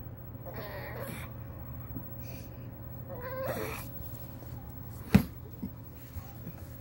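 Pug whining in two short, high cries, wanting to go out. A single sharp knock about five seconds in is the loudest sound.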